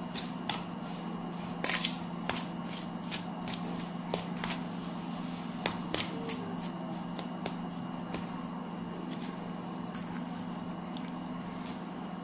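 Metal spoon scraping and clicking against a stainless steel bowl as crumbly steamed grated tapioca is mixed, in scattered irregular strokes over a steady low hum.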